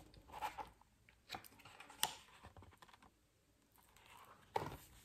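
Handling a large printed photo book and a card: a few light taps and paper rustles, one sharper click about two seconds in, with quiet between.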